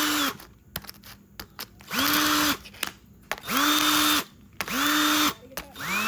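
Cordless drill drilling into an iPhone SE. It runs steadily, stops, then is pulsed in four short bursts that each spin up in pitch and wind down.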